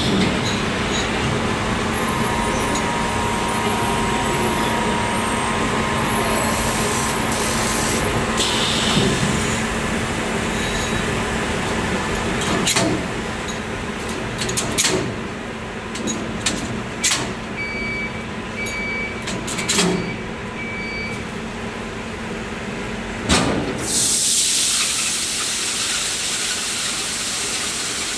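Production-line machinery for motor rotors, a heating oven with a chain conveyor, running steadily with a low hum. Through the middle come sharp metal clanks as rotors are set onto the conveyor fixtures, and then a run of short evenly spaced beeps. About four seconds before the end a loud steady hiss starts as the spray-cooling section sprays mist.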